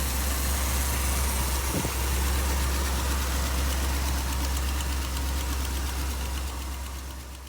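1965 Ford Thunderbird's 390 V8 engine idling with a steady low rumble, fading away near the end.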